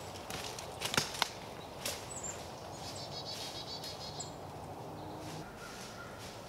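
Footsteps crunching through dry leaf litter and snapping twigs during the first two seconds, then fading as the walker moves off. A few short, high songbird chirps over the top.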